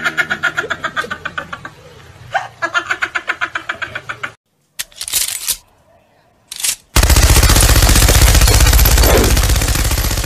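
A rhythmic, pulsing cartoon laugh sound effect, then two short mechanical clacks of a gun being readied, then a loud, rapid, continuous burst of machine-gun fire sound effect starting about seven seconds in.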